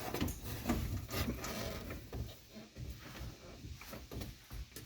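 Small irregular clicks and scrapes of metal parts as a new ignition lock cylinder is worked and rotated into place in a Chevy van's ignition switch.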